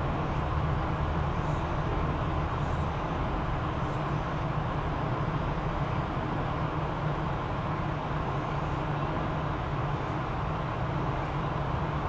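Steady outdoor background rumble and hiss, like distant traffic, with a few faint, short, high chirps over it.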